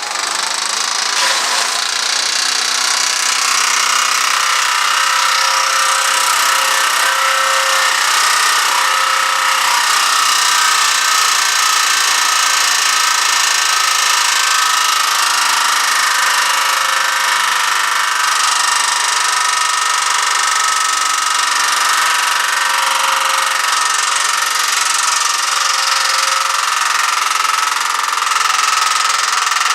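Small gasoline engine of tree-work power equipment running steadily at high speed under load, with little change in level throughout.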